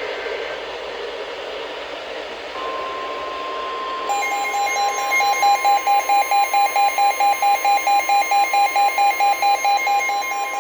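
NOAA Weather Radio's warning alarm tone, a single steady tone, comes on over radio hiss about two and a half seconds in, signalling an incoming warning. From about four seconds in, a weather radio receiver's alarm beeps over it, pulsing three to four times a second.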